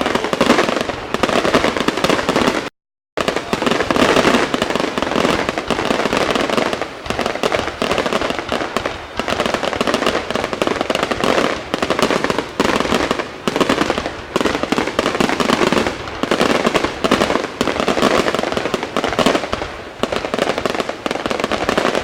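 Aerial fireworks display in a dense, continuous barrage of overlapping bangs and crackling. There is a brief complete dropout in the recording about three seconds in.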